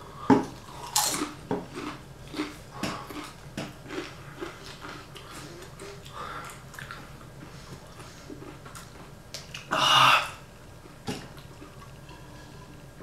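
Mouth chewing a crunchy chip, with irregular crisp crackles over the first several seconds. About ten seconds in comes a short, loud rush of air.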